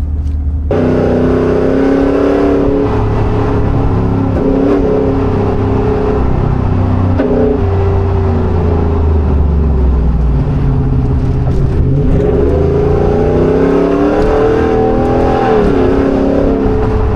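Ford F-150 Tremor's 5.0 L Coyote V8 running through a straight exhaust, its cutout valves open, while driving. It gets loud about a second in, then the engine pitch rises and falls with the throttle and climbs under acceleration in the last third.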